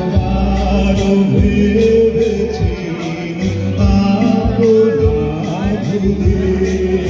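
A male singer singing live into a microphone with a band (drums and keyboards), amplified through stage loudspeakers, over a heavy, sustained bass line.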